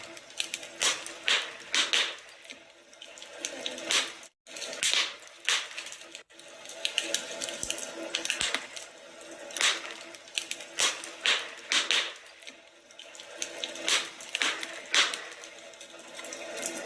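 Wood fire crackling in a fireplace, with irregular sharp snaps and pops over a low hiss. The sound drops out to silence very briefly twice, about four and six seconds in.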